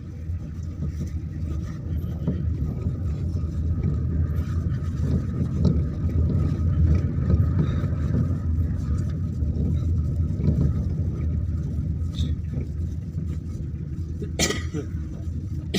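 A steady low rumble, with a faint steady higher tone above it and one sharp click near the end.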